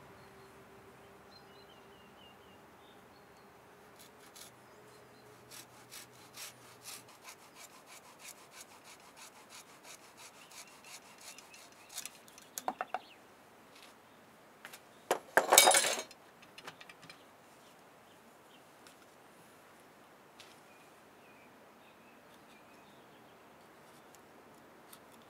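Small coping saw cutting wood held in a bench vise, rhythmic strokes about two a second for several seconds. A few sharp knocks follow, then a louder brief clatter of wood and tools, the loudest sound. Faint bird chirps in the background.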